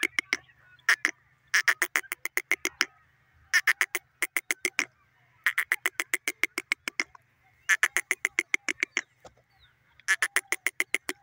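Grey francolin calling: about five loud bursts of rapid, sharp repeated notes, roughly eight a second, each burst lasting about a second with short pauses between.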